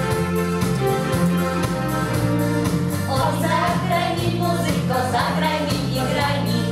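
Yamaha electronic keyboard playing a chordal accompaniment over a steady beat, joined about three seconds in by a small group of women's and boys' voices singing a song.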